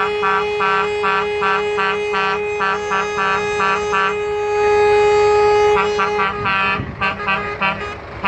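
Truck air horns honking in a fast rhythmic pattern of short toots of the same pitch, over another horn held steady, with one long loud blast about four seconds in and ragged toots after.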